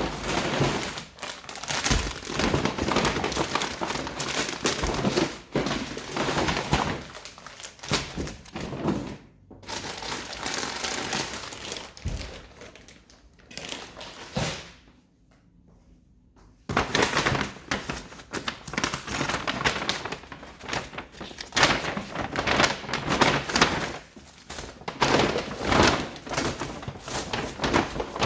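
Handling noise: crinkling and rustling with frequent knocks and thuds as objects are moved about. It stops briefly about halfway through.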